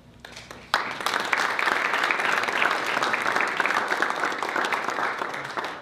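Audience applauding. It starts suddenly about a second in and tapers off near the end.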